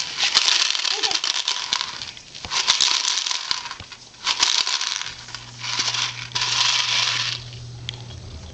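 Clear plastic toy rattle shaken in five bursts, its loose contents rattling hard inside; the first burst is the longest.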